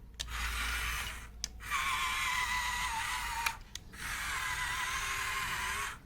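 A small electric motor of a battery-powered toy whirring in three stretches of one to two seconds, stopping briefly between them.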